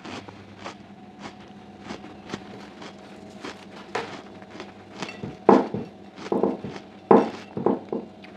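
Close-miked mukbang eating sounds: small clicks and taps while food is handled and chewed, then four or five louder smacks in the second half.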